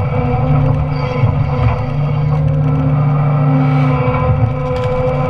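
Doosan Solar 255 LC-V excavator's diesel engine running steadily at working revs as the hydraulic shear grips and splits timber, with a few faint cracks from the wood.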